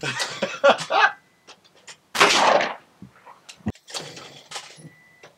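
A shotgun fired once at a flying clay target, a single sharp report about two seconds in that rings on briefly afterwards.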